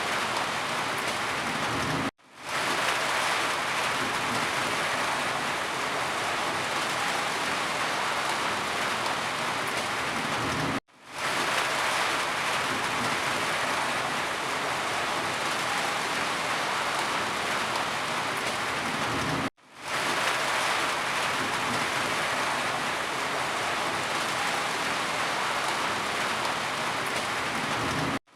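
Steady rain falling, an even, dense hiss. About every nine seconds it cuts out for an instant and fades quickly back in.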